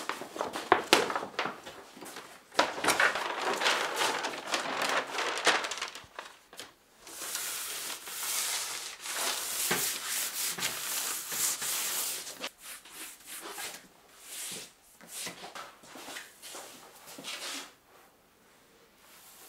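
Large sheets of plastic film and paper crackling and rustling as they are shaken out and laid over a print table. In the middle comes several seconds of steady rubbing hiss as a hand smooths a sheet flat, then scattered rustles that grow quieter near the end.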